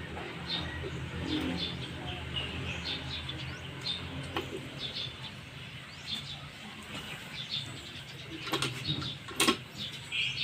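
Birds chirping over and over in short calls, over a low steady hum, with a few sharp knocks, the loudest near the end.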